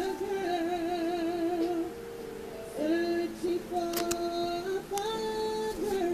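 A woman singing through a microphone, holding long notes with a wavering vibrato.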